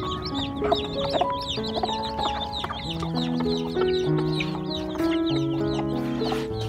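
Chicks peeping without pause in quick, short falling chirps, with chickens clucking, over background music of long held notes.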